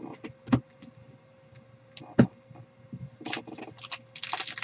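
A couple of soft knocks as trading cards are set down on the table, then from about three seconds in a quick run of crinkling as a foil trading-card pack wrapper is grabbed and handled.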